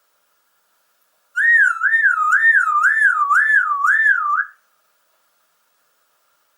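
A high whistle warbling smoothly up and down in pitch about twice a second, like a siren, lasting about three seconds from over a second in.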